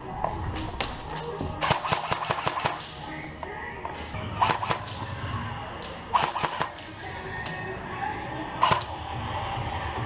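Airsoft guns firing: a rapid burst about two seconds in, then several short strings of shots spread through the rest.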